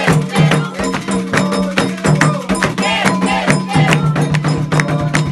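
Candomblé ritual music for Xangô: hand drums and a ringing iron bell play a dense, steady rhythm, with voices singing over them.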